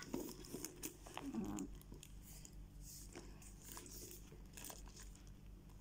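Faint rustling and light clicks of a handbag and its shoulder strap being handled.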